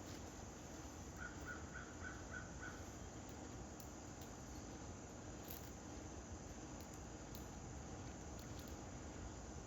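A bird calls a quick run of six short notes, about four a second, starting about a second in, over faint steady outdoor background noise.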